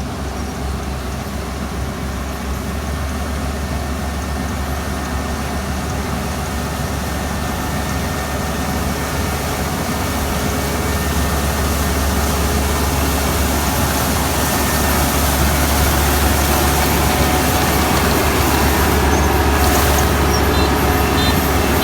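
Kubota ER470 combine harvester running steadily at work in a rice field, its engine and machinery a continuous drone that grows gradually louder. Short high beeps start repeating near the end.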